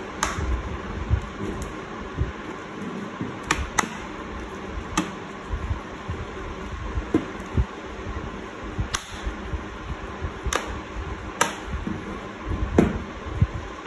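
Irregular sharp clicks and light knocks of small laptop parts being handled and fitted during reassembly, over steady background noise.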